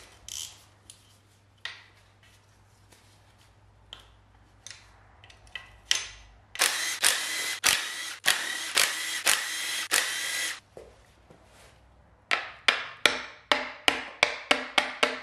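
A Makita 18-volt cordless impact driver runs for about four seconds in the middle, undoing the bolts of a Saab 900 engine's timing chain cover. Near the end comes a quick run of sharp metallic clicks, about three a second.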